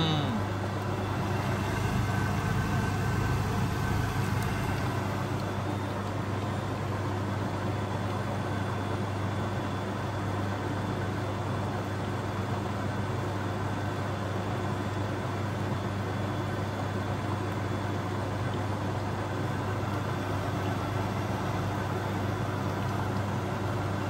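Beko WMB81341LS washing machine running with a steady, unbroken mechanical hum.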